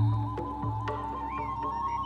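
Ambient music playing: a deep drum hit at the start, then held tones and drones with a couple of short gliding high notes.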